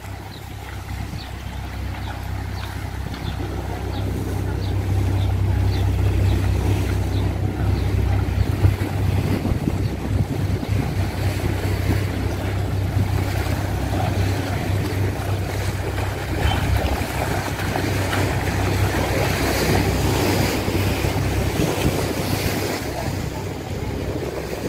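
Strong wind buffeting the microphone in a steady low rumble, over a choppy sea washing and slapping against a stone seawall.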